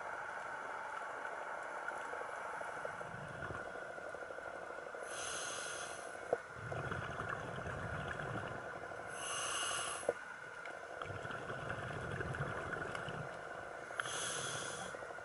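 A scuba diver breathing through a regulator underwater: three hissing inhalations about four seconds apart, each followed by a low bubbling rumble of exhaled air, with a few sharp clicks.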